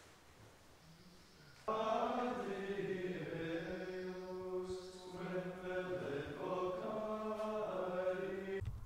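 Benedictine monks chanting plainchant in unison: long held notes that step slowly from pitch to pitch. It starts abruptly about two seconds in and cuts off sharply just before the end.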